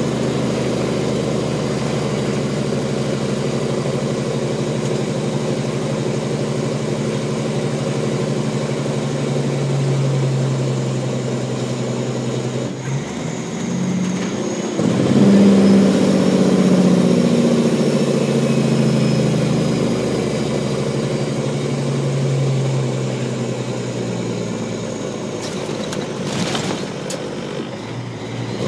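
Peterbilt 379 truck's diesel engine running under way on the road. The engine note dips briefly a little under halfway through, then comes back louder and rising in pitch.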